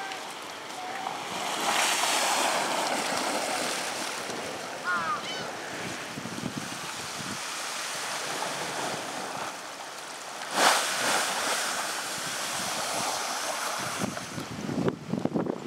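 Wind blowing on the microphone over harbor water lapping against a concrete quay wall, with one sharp knock about two-thirds of the way through.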